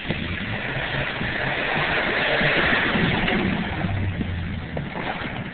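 Pickup truck driving past through mud: engine running with tyres churning the wet ground, swelling as it comes closest about halfway through, then fading as it moves off.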